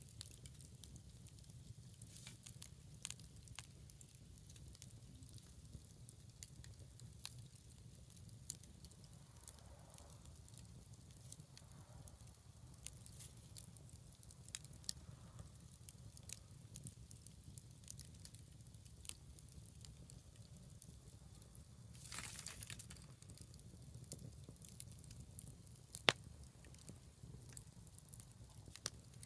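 Scrap-wood bonfire crackling, with scattered sharp pops over a steady low rumble. There is a brief rush of noise about 22 seconds in, and a single sharp pop about 26 seconds in is the loudest moment.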